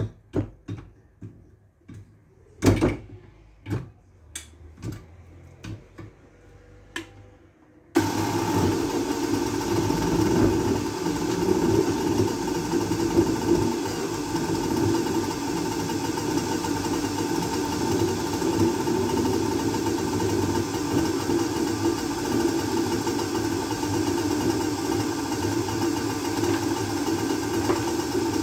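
A few sharp clicks and knocks of the blender jar being handled on its base. Then, about eight seconds in, a Steba countertop blender's motor switches on abruptly and runs steadily at full speed, blending oranges into juice.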